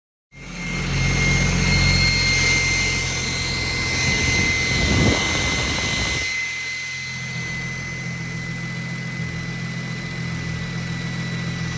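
BMW N54 3.0-litre inline-six, converted to a single Precision turbo, idling steadily, with a constant high whine from the spinning turbo compressor. Around the middle a rush of air builds and dies away as the compressor inlet is approached.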